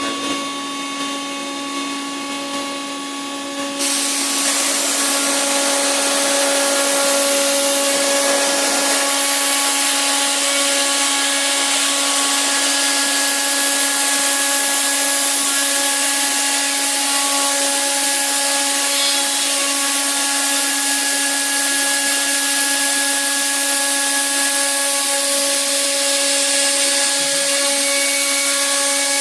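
High-speed milling spindle on a robot arm, running with a steady whine. From about four seconds in, a louder, steady hiss joins the whine as the cutter mills into the workpiece.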